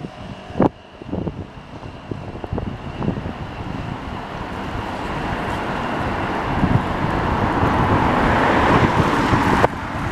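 City street traffic noise: a rushing sound swells over several seconds and then stops abruptly near the end, with a few short knocks early on.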